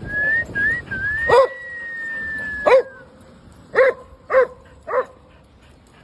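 A dog whining in a high, thin tone, a few short rising whines and then one long held whine of about two seconds. Over it a dog gives five sharp barks, the last three about half a second apart.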